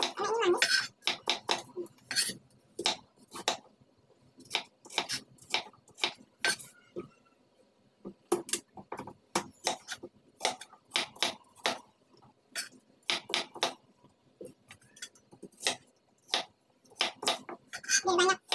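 Small kitchen knife chopping carrot and a pale-green vegetable into chunks on a thick wooden chopping block: an irregular run of sharp knocks, one to a few a second, with a short pause near the end.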